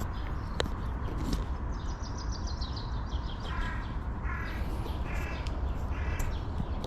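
A crow cawing four times in an even series over a steady low rumble of wind and riding noise, with a few sharp clicks.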